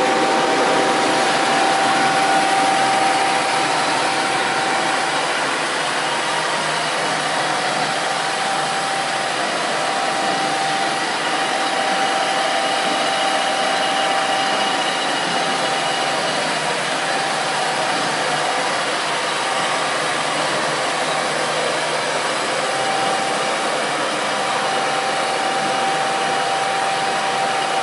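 Breddo Likwifier 300-gallon high-shear blender running on its 60 HP electric motor: a loud, steady whirring with a constant whine over it.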